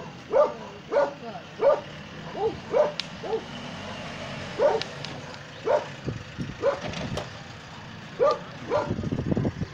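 A dog barking over and over, about one bark a second with a short pause in the middle. A low rumble joins near the end.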